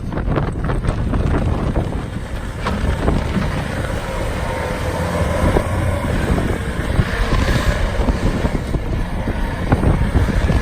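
Skid steer loader's engine running steadily, with wind buffeting the microphone and a few knocks.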